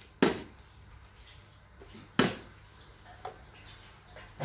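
Small plastic water bottle being flipped and landing on a tiled floor: two sharp thuds, about two seconds apart.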